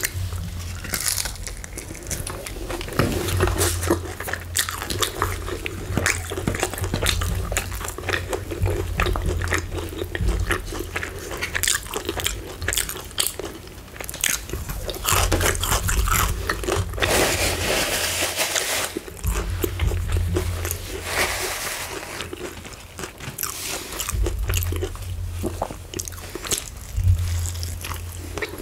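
Close-miked eating of KFC fried chicken: irregular crisp crunches of the breading as it is bitten and chewed, with wet mouth and chewing sounds.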